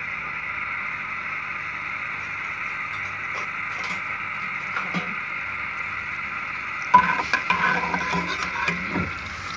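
A slotted metal spoon scraping and clinking against a metal karahi as it spreads hot oil over the pan. It starts suddenly about seven seconds in and lasts about two seconds, over a steady hiss.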